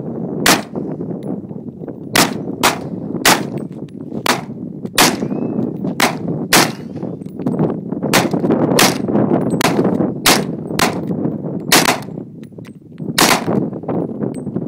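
AR-15 rifle in .223 firing a string of single semi-automatic shots, about fifteen, at an uneven pace from roughly two a second down to one every second or so, with a short pause near the end.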